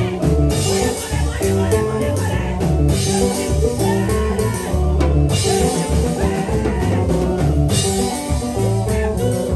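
Worship band music with guitar and drum kit over a steady, prominent bass line.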